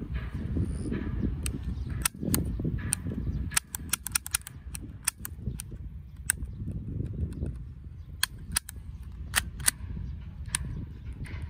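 Academy M9 airsoft BB pistol being cocked and fired, making a series of sharp, irregularly spaced clicks and snaps, some bunched close together. Low wind rumble on the microphone runs underneath.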